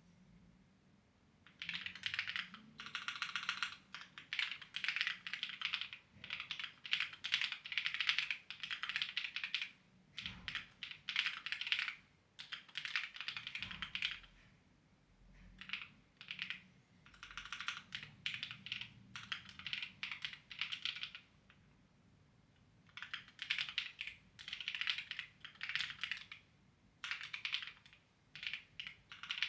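Clacky computer keyboard being typed on in quick runs of keystrokes, with short pauses between the runs.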